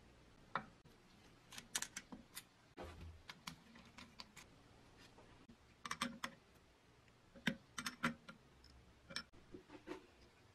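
Scattered light clicks and taps of a spanner and small metal parts being handled while reassembling a bench grinder motor, coming in short clusters a few times.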